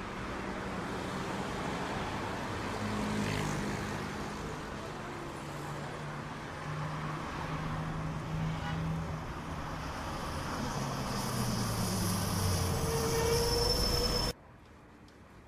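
Road traffic: motor vehicles running and passing, a continuous rush of noise with a low engine hum that shifts in pitch. It cuts off suddenly near the end, leaving a much quieter background with faint ticks.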